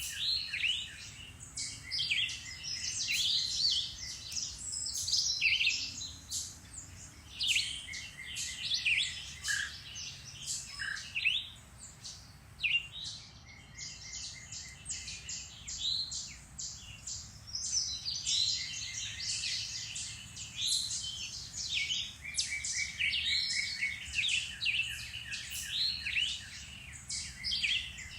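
Several woodland songbirds singing and calling over one another in spring: a dense chorus of chirps, whistled phrases and rapid trills.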